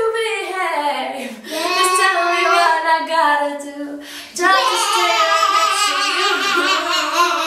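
A young female voice singing unaccompanied, drawn-out wordless runs and held notes with vibrato, with a short break about four seconds in before another long held note.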